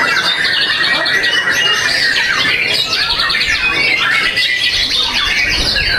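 White-rumped shama singing a rapid, varied stream of whistles and chattering notes without a break.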